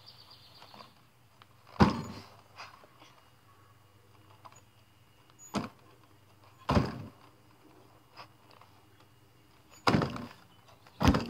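Manual wheelchair knocking on concrete: five separate sharp thuds, one to three seconds apart, as it is tipped up and dropped back down in wheelie attempts, with a few faint clicks between.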